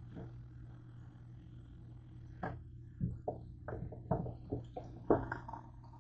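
A quick string of light knocks and clicks from handling, about ten in under three seconds starting a couple of seconds in, over a steady low hum.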